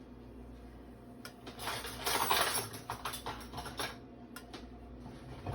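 A spoon stirring and scraping in a cooking pot: a run of clinks and scrapes starting about a second in, loudest about two seconds in and dying away by four seconds, over a steady low hum.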